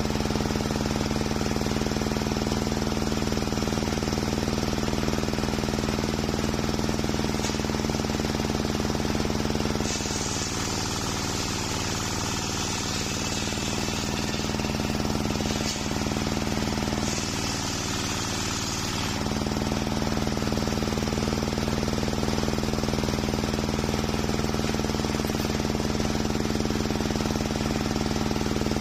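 Large homemade table circular saw running with a steady, loud hum, sawing a waru (sea hibiscus) log. About ten seconds in the blade bites into the wood and a hissing cutting sound joins the hum for about five seconds, then again briefly for about two seconds. Under that load the hum dips.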